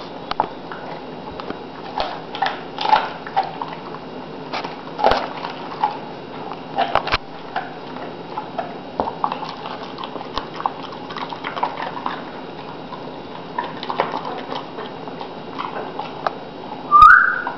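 Dog licking and chewing at a whole raw chicken: irregular wet smacks and clicks. Near the end comes a brief, loud, rising high squeal.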